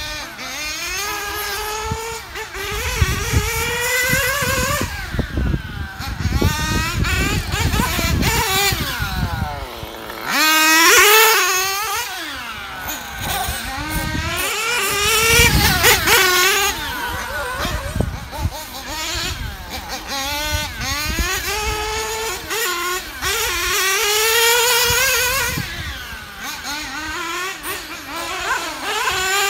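Mugen MGT7 1/8-scale GT radio-controlled car's R&B 7T nitro engine revving as the car laps the track. Its high whine rises and falls over and over with throttle and passes, loudest about eleven and sixteen seconds in.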